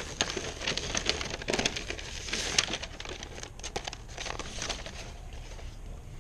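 Sheet of flexible flashing membrane being handled, crinkling and crackling with many sharp little clicks that thin out near the end.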